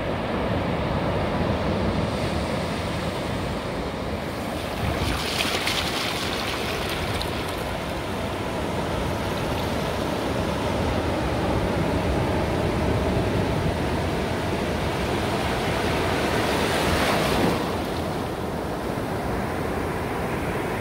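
Ocean surf on a beach: a steady wash of waves, with two louder waves breaking, one about five seconds in and one about three-quarters of the way through.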